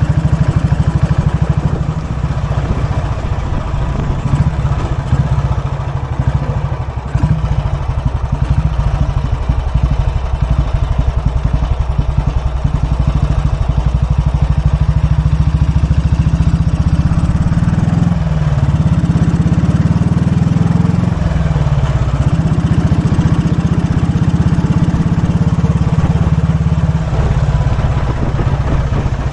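1943 Royal Enfield WD/CO's 350cc single-cylinder overhead-valve engine running steadily while the motorcycle is ridden. The engine note dips and picks up again twice, about two-thirds of the way through.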